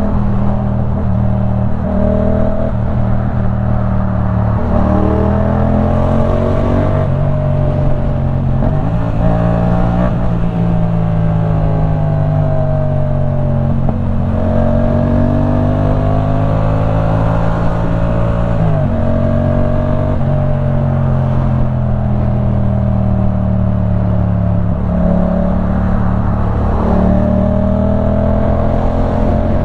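Yamaha MT-07's 689 cc parallel-twin engine running through a LeoVince One Evo full-system exhaust while being ridden. The engine note slowly rises and falls with the throttle, with several sudden drops in pitch.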